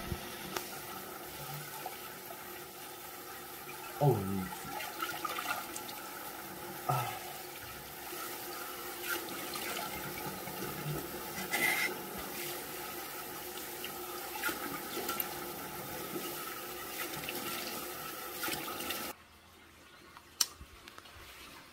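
Bathroom sink tap running steadily while a foam-covered face is rinsed with splashing hands. The water is shut off about nineteen seconds in.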